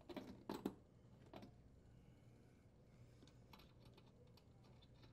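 Faint small metal clicks and taps as the nuts are worked off a dishwasher heating element's threaded terminals: a quick cluster of three clicks in the first second, another about a second and a half in, then a few fainter ticks.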